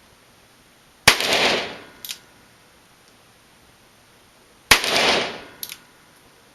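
Two shots from a Smith & Wesson .38 handgun, about three and a half seconds apart, each with a short echoing tail. A fainter crack follows each shot about a second later.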